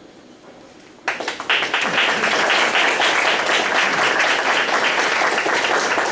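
Audience applauding, starting suddenly about a second in and keeping up steadily.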